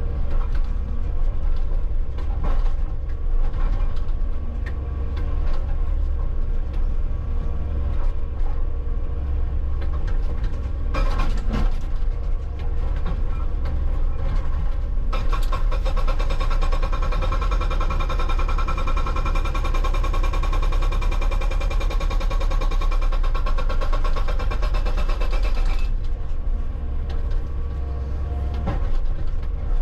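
Hitachi 160 excavator's engine running throughout. About halfway through, its hydraulic rock breaker hammers rapidly for roughly ten seconds against solid rock, then stops.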